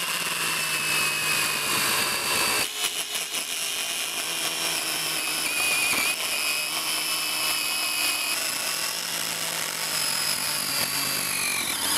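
KM Grand KMC2040 8-inch cordless chainsaw running under load, its chain biting into the side of a log to cut a groove. The electric motor gives a steady high whine, and the whine sags slightly in pitch near the end.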